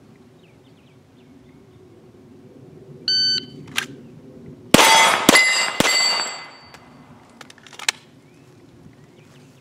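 A shot timer beeps once, then about a second and a half later a Glock 17 9mm pistol fires three quick shots about half a second apart, the steel targets ringing as they are hit.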